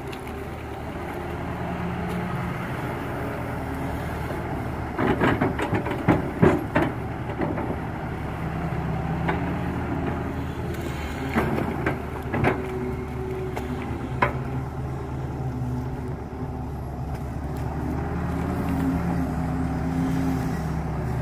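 Diesel engine of a Kato crawler excavator running steadily under hydraulic load while it digs and swings wet mud. Clusters of knocks and clanks come about five to seven seconds in and again around eleven to fourteen seconds.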